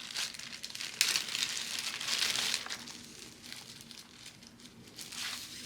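Packaging being handled and crumpled in irregular bursts, louder in the first half and dying down after about three seconds.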